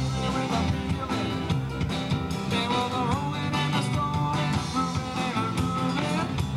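Live rock-and-roll band playing a song with a singer, guitar and drums, heard through a camcorder's microphone.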